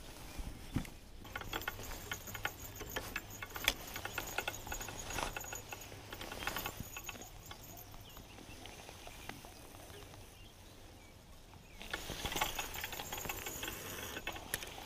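Hands kneading and squeezing damp, crumbly homemade groundbait in a plastic bucket: a dense run of small wet crackles and clicks for the first several seconds, then quieter. Louder rustling handling noise near the end.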